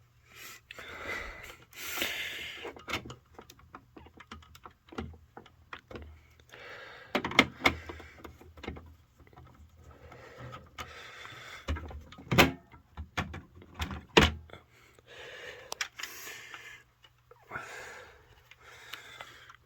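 Handling noise as a fire-alarm speaker strobe is taken off its mount: irregular rustling, plastic clicks and a few sharp knocks, the loudest in the middle stretch.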